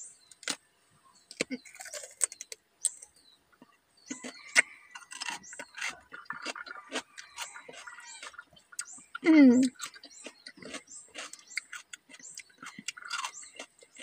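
Raw cucumber being bitten and chewed close to the microphone: a string of crisp crunches and small wet mouth clicks. About nine seconds in, a brief vocal hum slides sharply down in pitch. It is the loudest moment.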